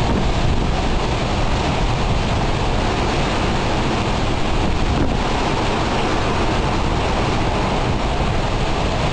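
Hurricane wind blowing hard and steadily, buffeting the microphone.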